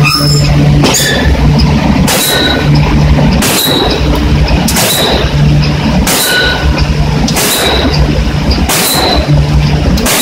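Forging hammer striking red-hot steel in a closed die, about eight heavy blows roughly one every 1.3 seconds, each with a short metallic ring. A steady low machine hum runs between the blows.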